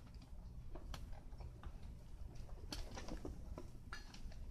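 Faint, scattered clicks and light knocks from hand work on the canopy's tarp and bolt fittings, over a low steady rumble.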